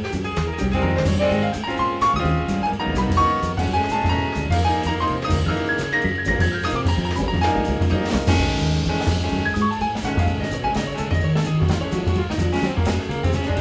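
Live jazz combo playing: a piano line over double bass and drum kit, with the cymbals keeping a steady beat. A cymbal crash about eight seconds in.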